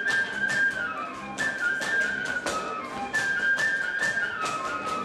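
Romanian folk dance music from Bucovina: a high, piping melody in repeating falling phrases over a quick, even beat.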